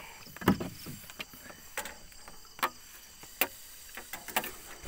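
Sharp knocks and clicks of a speargun and gear being handled, the loudest a thump about half a second in, with light clatter between. Insects trill steadily underneath.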